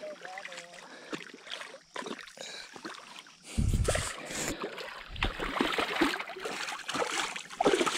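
Water splashing and dripping as a flathead catfish is pulled from the river and handled, with scattered rubbing and clicks and a heavy bump about three and a half seconds in.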